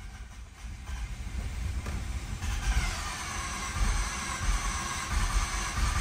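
Starter cranking the flooded 1.3 L rotary engine of a 2011 Mazda RX-8, trying to get it to fire. The low rumble grows louder, and a whine comes in about two and a half seconds in.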